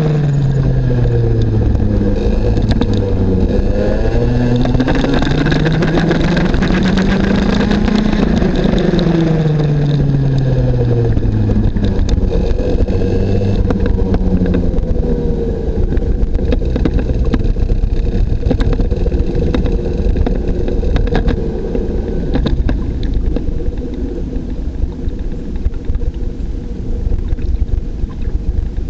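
IAME X30 Junior single-cylinder two-stroke kart engine heard from on board, revs climbing and dropping through the corners. It then settles to a lower, steadier note and gets quieter near the end as the kart slows to a crawl.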